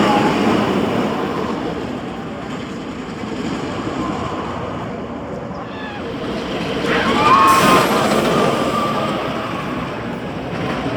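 Steel roller coaster train running on its track. It grows louder to a peak about seven to eight seconds in as it passes, then fades.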